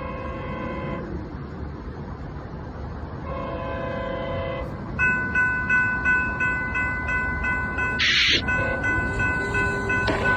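Train horn sounding two blasts of about a second each, then a bell ringing rapidly and steadily as the train approaches. A short burst of hiss comes about eight seconds in.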